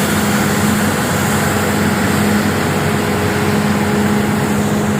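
Leaf vacuum truck's engine and suction blower running steadily, a constant hum over a rushing noise as it sucks up leaves from the roadside.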